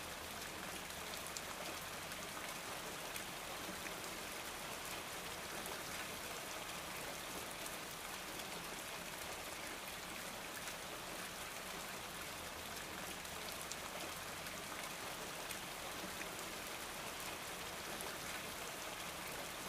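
Steady, even hiss with faint scattered ticks through it, like rain falling, with no change throughout.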